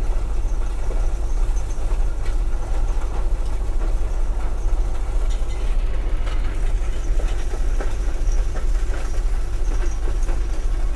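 Caterpillar 972 wheel loader's diesel engine running steadily, heard from inside the cab as a low, even drone, with scattered knocks and rattles.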